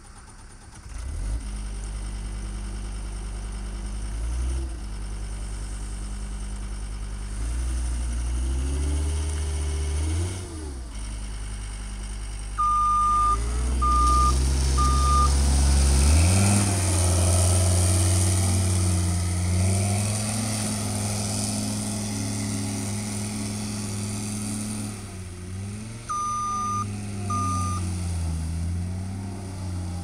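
John Deere 329D compact track loader's four-cylinder diesel engine starting about a second in, then running and revving up and down several times as the machine moves. Its backup alarm beeps three times near the middle and twice near the end.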